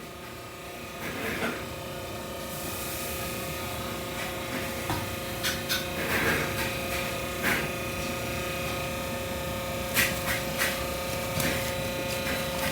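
A machine running with a steady multi-tone hum over a low rumble, growing slowly louder, with scattered clicks and rubbing scrapes.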